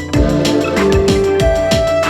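Background music: an electronic track with a steady kick-drum beat under held synth notes.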